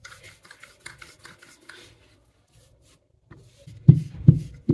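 Rolling pin rubbing back and forth over dough on a rolling board in soft repeated strokes, then two quick knocks on the board near the end.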